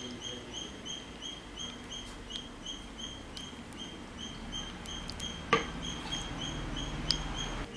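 A regular high-pitched chirp repeating about two and a half times a second, with a sharp click about five and a half seconds in and a smaller one near seven seconds.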